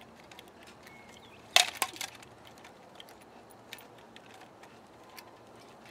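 Nunchucks striking a thin toy sword held up to block: one sharp clack with a quick second hit right after it, about a second and a half in, then a few faint clicks.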